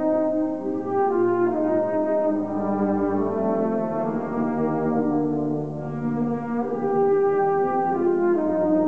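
High school marching band's brass section playing slow, held chords, each note sustained for a second or two before moving to the next.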